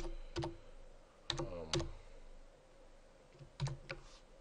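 Computer keyboard keys pressed a few times, each a separate sharp click, with two close together about a second and a half in and another pair near the end.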